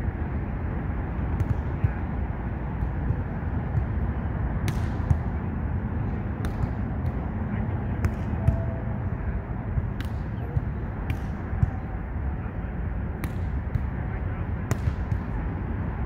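A volleyball being hit back and forth: a dozen or so sharp slaps at irregular intervals, over a steady low rumble.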